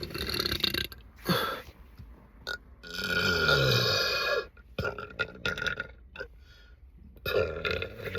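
A person burping several times: short burps at the start and about a second in, then a long burp about three seconds in that falls in pitch, and another starting near the end.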